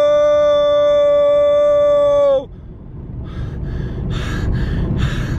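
A young man's voice holding one long shouted note at a steady pitch, cutting off about two and a half seconds in. After it comes the low road rumble of the car cabin, with short breathy puffs.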